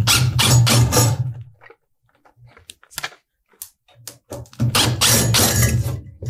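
A 20V cordless impact driver backing out the screws that hold a metal octagon electrical box to a ceiling joist. It runs in two bursts of about two seconds each, one at the start and one about four seconds in, with a few clicks between them.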